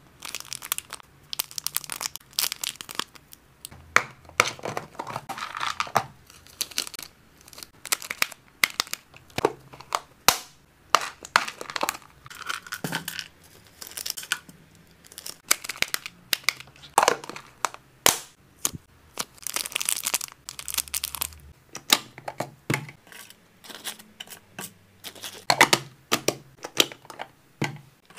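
Packaging being handled: crinkling and rustling of wrappers and bags, with irregular sharp clicks and knocks as items are moved and set down.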